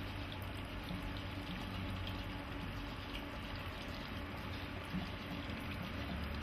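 Steady hiss over a low hum from parked electric locomotives standing powered up in a depot.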